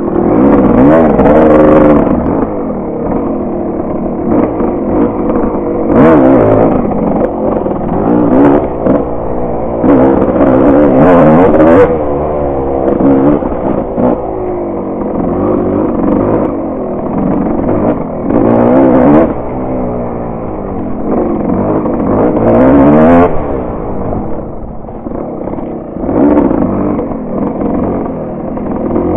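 Dirt bike engine revving under way, its pitch rising and falling again and again with the throttle, with several louder surges of acceleration.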